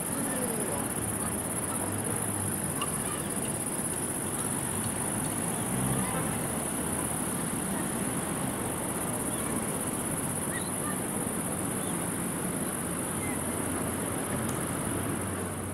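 Steady high-pitched chorus of crickets, over a low, even background noise.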